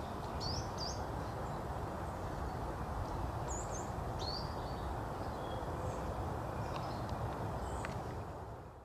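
Small birds giving scattered short, high chirps over a steady outdoor background hiss and low rumble, all fading out near the end.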